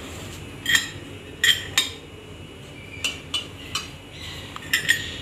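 Metal spoon clinking against ceramic bowls and plates: about eight short, sharp clinks at irregular intervals as the spices and tamarind water are handled.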